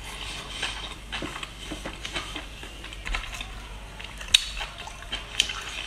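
Close-miked chewing of a garlic-topped oyster: a run of small wet mouth clicks and smacks. A sharp click about four seconds in, as an oyster shell on the plate is handled.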